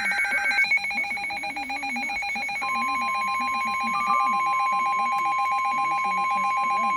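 Two emergency alert tones overlapping: a rapidly pulsing electronic alert tone, joined about two and a half seconds in by a steady single-pitch alarm tone, the warning tone of a weather radio alert.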